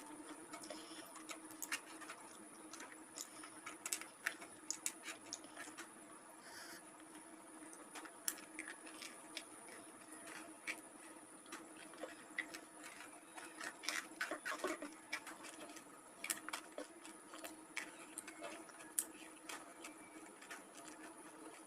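Close-miked eating: soft, irregular wet clicks and smacks of chewing rice and jengkol beans, a few a second, over a faint steady hum.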